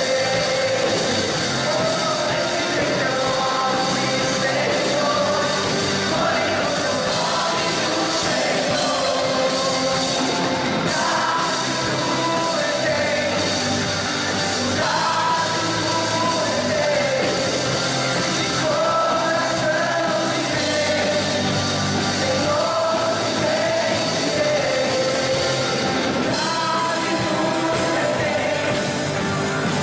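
A rock band playing live with a singer, the sound steady and dense throughout.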